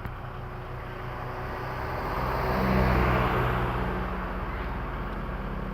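Komatsu PC20-5 mini excavator's diesel engine running steadily, growing louder for a couple of seconds in the middle, then settling back.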